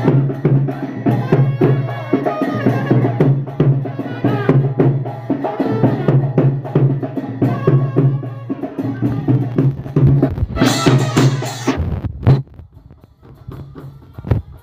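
Loud music with a steady drumbeat and percussion. Near the end it drops off sharply to a much quieter background.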